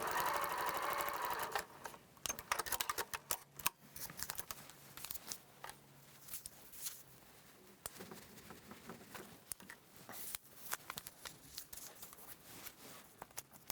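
Electric sewing machine stitching through fabric and foundation paper, stopping about a second and a half in. Scattered light clicks and taps follow.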